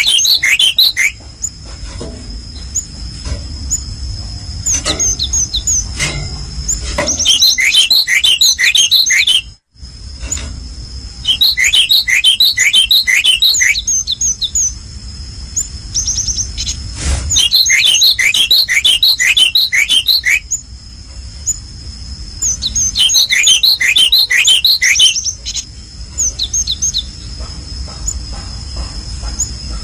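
A small songbird singing in repeated bursts, each a quick run of short downward-sweeping chirps lasting two to three seconds, coming every five or six seconds. A steady high-pitched tone and a low rumble run underneath, cutting out briefly about ten seconds in.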